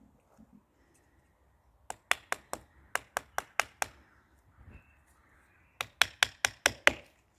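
Small hammer tapping a nail into a walnut graft to pin the scion to the stock. The taps are light and sharp and come in two quick runs of about five a second, about nine in the first run and six in the second.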